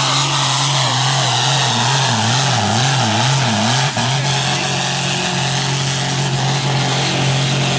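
Ford tractor's diesel engine running flat out under heavy load as it drags a tractor-pull weight sled. Its pitch wavers up and down about four times roughly two seconds in, then holds steady.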